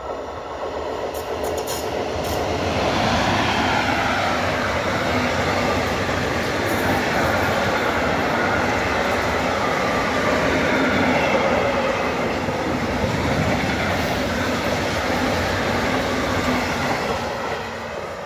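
Freight train of tank wagons rolling past at close range. The noise of the wagons grows over the first three seconds, then holds steady and loud.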